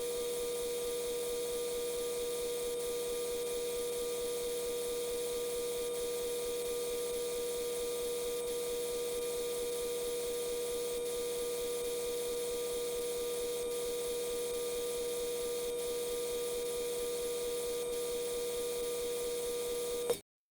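A steady electrical hum: one unwavering mid-pitched tone with fainter overtones and a fast, even low flutter. It cuts off abruptly near the end.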